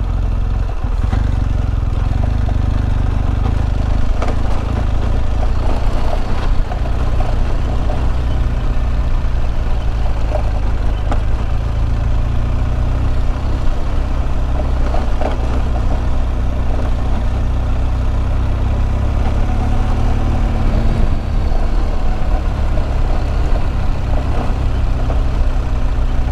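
Adventure motorcycle riding along a wet clay dirt road, the engine running steadily under a dense low rumble, with a few short knocks and clatters from the rough surface.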